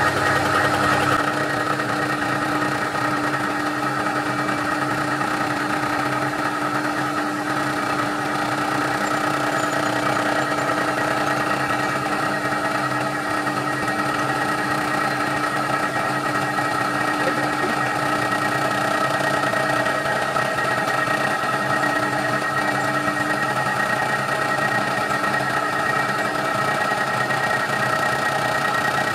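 TOS FNK25A milling machine running, its face-mill cutter skimming the deck of an aluminium GM three-cylinder cylinder head under a coolant mist spray: a steady machine hum with several held tones. The lowest part of the hum drops away about a second in.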